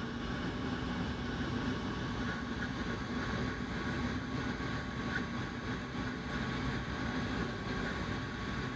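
Industrial FDM 3D printer running: a steady mechanical hum and whir from its print-head cooling fan and stepper motors as it prints.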